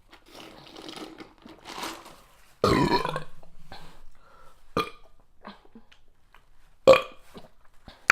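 A woman burps once about two and a half seconds in; it is the loudest sound here and trails off over about a second. A few short clicks and a brief sharp burst follow.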